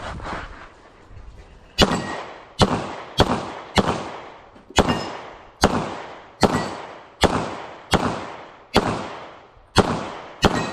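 Bul SAS II UR Open-division pistol firing a string of about a dozen single shots, mostly two-thirds of a second to a second apart, each trailing off in a short echo.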